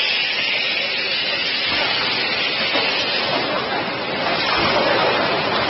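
Packaging machinery on a carton erecting and sealing line for plastic cups running with a steady hiss and a few faint knocks.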